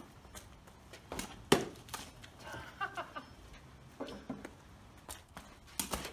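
A cricket ball striking hard, one sharp crack about a second and a half in, with a few smaller knocks around it and another near the end.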